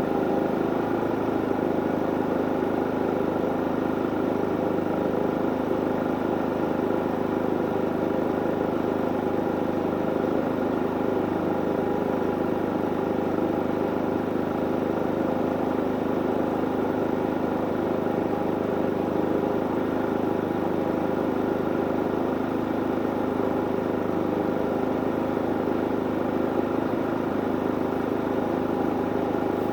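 Harbor Freight inverter generator's engine running steadily under the load of a travel trailer's air conditioner, an even hum with several steady tones.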